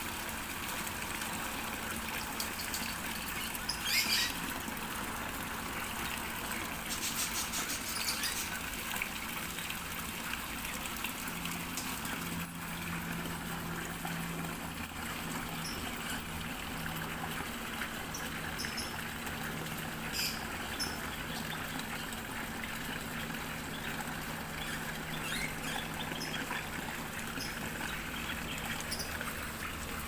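Water trickling in a small aviary pond, with a steady low hum underneath. Birds give a few short high chirps, one about four seconds in, a cluster around eight seconds, and a few more about twenty seconds in.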